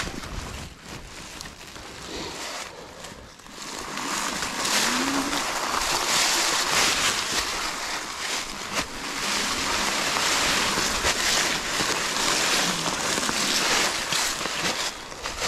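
Fat knobby e-bike tyres rolling through a thick layer of dry fallen leaves: a steady crackling rustle that gets louder about four seconds in, with a few sharp clicks from bumps on the trail.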